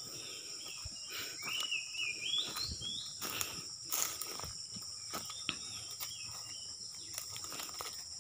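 Footsteps crunching over dry fallen oil palm fronds and leaf litter, irregular steps, over a steady high chorus of insects.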